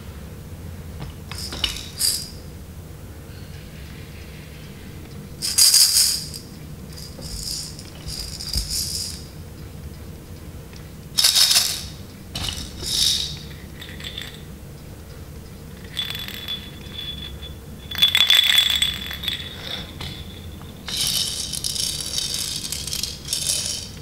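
Plastic baby rattles shaken by hand, one after another, in short bursts of rattling a second or two long, about eight times. A thin ringing note runs through two of the later bursts.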